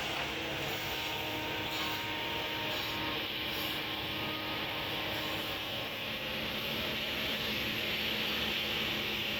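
Kobelco excavator's diesel engine running steadily, an even noise with a faint steady hum and no sudden knocks.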